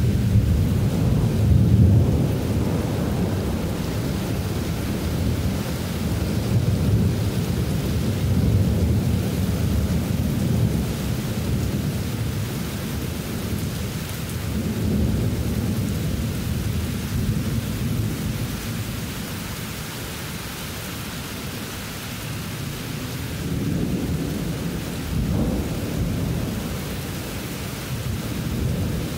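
Near-continuous rolling thunder over the steady hiss of heavy rain. The rumble swells and fades several times, loudest in the first few seconds and again near the end.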